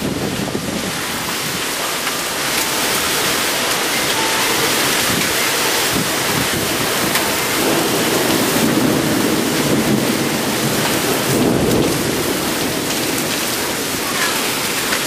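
Heavy wind-driven rain from a severe thunderstorm, a dense steady downpour that grows louder over the first few seconds. A low rumble of thunder swells in the middle.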